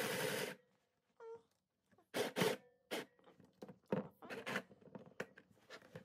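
Electric sewing machine running, stopping about half a second in; then fabric is handled and shifted under the machine with scattered rustles and clicks.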